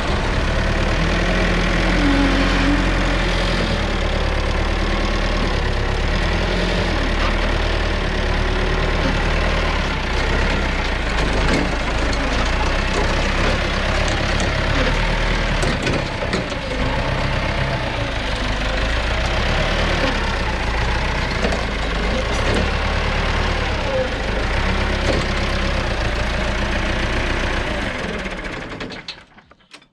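A heavy machine's engine idling steadily, fading out near the end.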